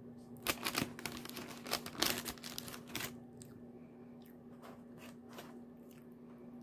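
Eating sounds close to the microphone: a few seconds of crackly crunching and rustling, then scattered small clicks. A steady hum runs underneath.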